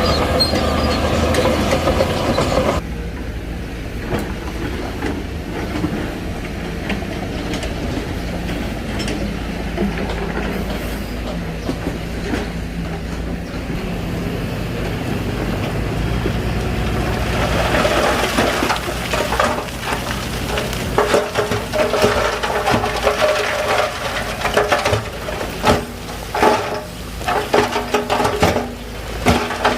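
Crawler bulldozer's diesel engine running, with its steel tracks clanking and rattling. The sound drops abruptly about three seconds in, and the clanking grows busier and louder from about two-thirds of the way through.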